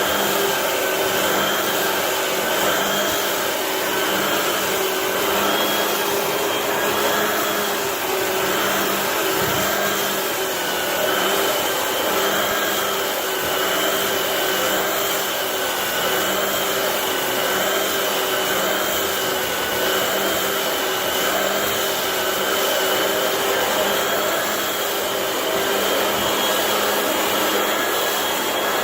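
Floor sanding machine running steadily on a hardwood floor: a continuous rushing motor-and-fan noise with a whine that drifts slightly in pitch.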